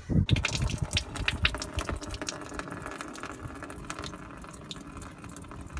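Engine coolant draining from a car's cooling system, running and splashing into a container, the flow tapering off and getting quieter.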